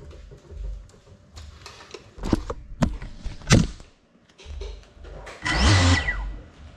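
FPV quadcopter crashing: a quick series of knocks and clatters as it hits furniture and the floor, the loudest about three and a half seconds in. A short, loud, rushing burst with a falling whine follows around six seconds in.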